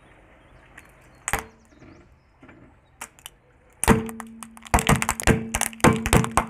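Small plastic LED flashlights cracking and snapping as they are crushed under a slowly rolling car tyre: one sharp crack about a second in, then a rapid run of loud cracks and crunches in the second half.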